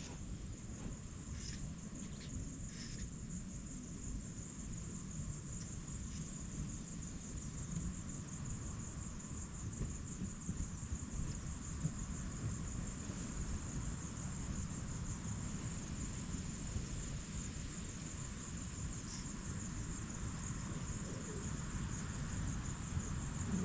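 Crickets trilling in a steady, continuous high-pitched chorus, over a low rumbling background noise.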